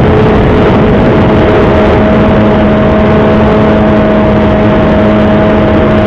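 Electric brushless motor and pusher propeller of a Bixler 3 foam RC plane running at a steady pitch in flight, loud and close to the onboard camera. Wind rushes over the microphone underneath it.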